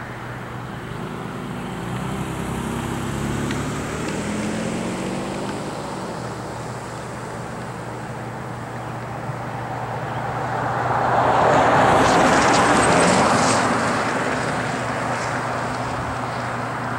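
Highway traffic passing. Vehicles go by over a steady low hum, and the loudest swell comes about twelve seconds in, as a pickup truck towing a trailer passes and its sound drops in pitch as it goes away.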